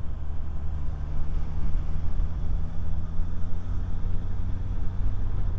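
Motorcycle engine running steadily under way, with wind and road noise; it gets louder just at the start.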